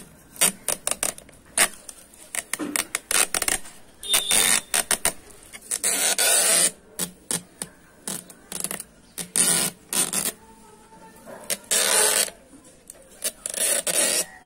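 Clear adhesive tape being peeled off a plastic planter, crackling and rustling in irregular bursts, along with the scrape of the plastic pot being handled.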